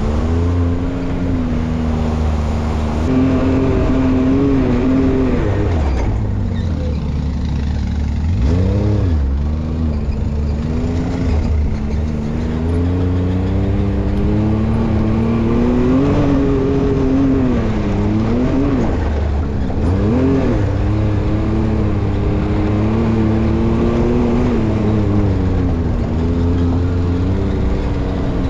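Side-by-side UTV engine running under load. Its pitch holds mostly steady, then dips and climbs back several times as the throttle is eased off and reapplied.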